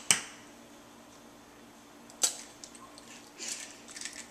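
An egg rapped against the rim of a small stainless steel bowl: a sharp tap at the start and another about two seconds in, then a faint crackle of eggshell as it is pulled apart near the end.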